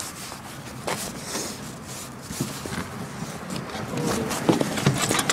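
Kick scooter's wheels rolling over asphalt, a steady rough rumble broken by several sharp knocks.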